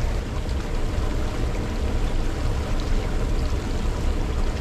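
Creek water rushing steadily over rocks in a shallow riffle, a constant rushing noise with a low rumble underneath.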